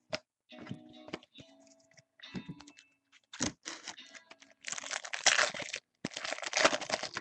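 Trading-card pack wrapper being torn open: scattered light clicks of cards being handled, then two rough tearing rips of about a second each in the second half.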